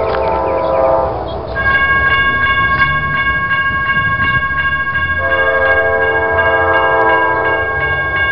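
CSX diesel freight locomotive's air horn sounding a chord for a grade crossing: one blast ending about a second in, a pause of about four seconds, then another blast from about five seconds in. From about a second and a half in, a grade-crossing warning bell rings steadily, about three strikes a second.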